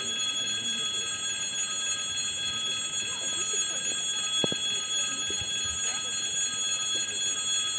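Railway crossing warning bell ringing without a break, the signal that a train is approaching.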